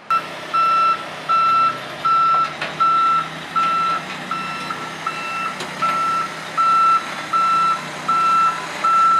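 Heavy-haul truck's reversing alarm beeping in a steady, evenly spaced series, about one beep every three-quarters of a second, over the truck's engine running low underneath.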